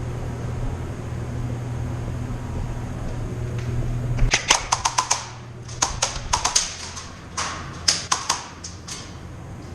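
Airsoft guns firing in several short rapid bursts of sharp cracks, starting about four seconds in. Before that, a low steady hum.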